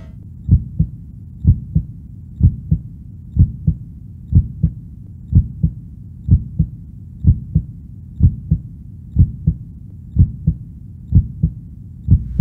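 Heartbeat sound effect: pairs of short low thumps, a lub-dub, repeating steadily about once a second.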